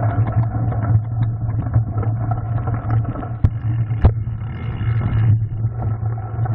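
Mountain bike rolling down a rocky gravel trail, heard through a handlebar-mounted camera: steady rumble and rattle of the tyres on loose stone and the bike's frame, with two sharp knocks about three and a half and four seconds in.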